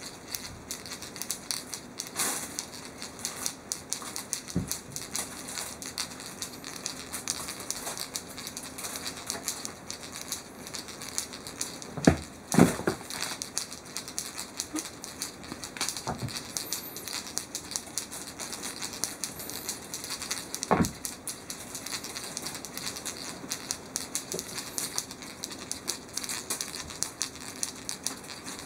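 A cat playing with a feather cat-teaser toy on a floor: steady light pattering and rustling of paws and toy, with a few louder thumps, two close together about twelve seconds in, one near sixteen seconds and one near twenty-one seconds.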